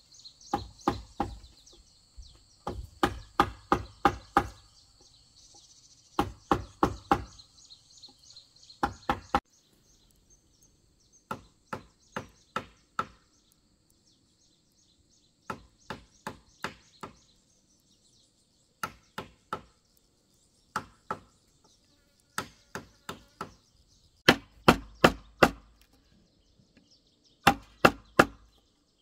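Bamboo being chopped: sharp strikes in quick runs of four to six, about three a second, with short pauses between runs. A high insect drone sounds behind the strikes in the first third.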